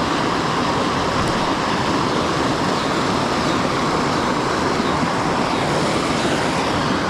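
Steady rush of creek water flowing over rocks, an even hiss that does not change.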